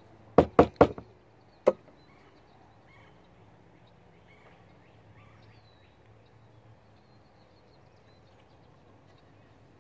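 Four sharp knocks, three in quick succession and a fourth about a second later: a cut-down black-powder muzzleloader rapped upright on a wooden bench top to settle the powder charge in the barrel.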